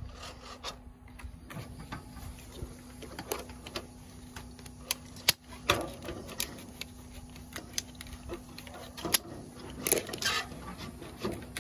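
Scattered sharp clicks and knocks of hand work on soffit and fascia at a roof eave, a few of them louder strikes, over a faint steady low hum.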